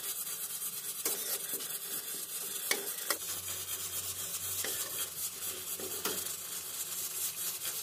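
Sliced garlic frying in a little oil in a wok, sizzling gently while a spatula stirs and scrapes it around the pan, with a few sharp clicks of the spatula against the wok. This is the stage where the garlic is cooked until fragrant.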